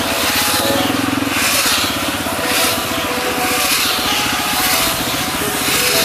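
McHale 998 square-bale wrapper wrapping a big square bale, its two rotating satellite arms stretching film around it with a hissing swish about every 0.7 s. Under it runs the steady hum of the tractor engine that drives the wrapper.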